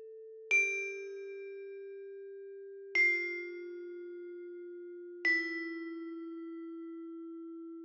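Struck metal chime notes in a slow descending scale: three notes about two and a half seconds apart, each a step lower than the last and ringing on with a long fade, and a fourth, lower note struck at the very end.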